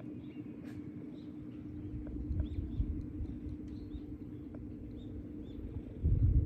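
Domestic cat purring steadily close to the microphone, with faint bird chirps behind it. Near the end comes a louder low thump.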